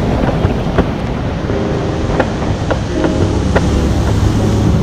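Outboard-driven flats boat underway: wind rushing over the microphone and water hissing along the hull, with a steady low engine drone that firms up about halfway through. Scattered sharp ticks cut through the rush.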